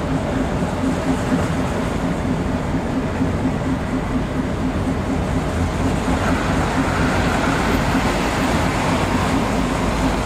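Narrow-gauge diesel locomotive's engine running steadily with an even throb, heard close up. From about six seconds in, a higher hiss joins it.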